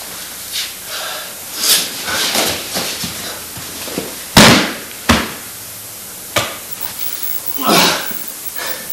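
Aikido breakfalls: bodies and arms slapping down on the dojo mat as partners are thrown, with two loud sharp slaps about four and a half and five seconds in, and softer thuds and rustling between.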